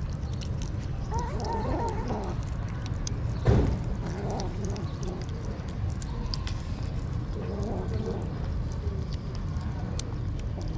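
Kittens eating wet cat food, giving short wavering mews in three bouts amid small chewing clicks. One thump comes about three and a half seconds in, over a steady low rumble.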